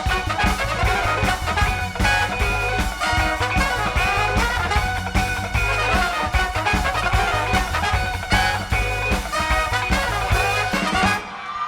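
Live soul band playing an instrumental passage: a horn section over a driving rhythm section with a steady beat and heavy bass. The band cuts out briefly near the end.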